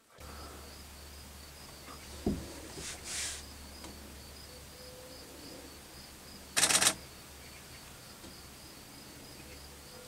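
Outdoor ambience with a steady, pulsing insect-like trill over a low hum. A dull thud comes a little over two seconds in, and a short, loud rasping burst of noise about two-thirds of the way through.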